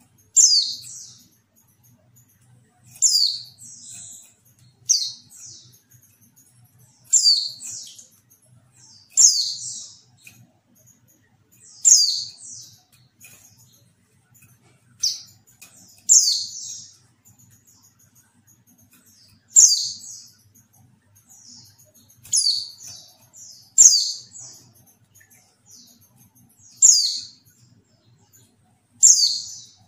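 Female white-eye (pleci) giving short, high calls that fall in pitch, some followed by a quick second note, repeated about every two to three seconds.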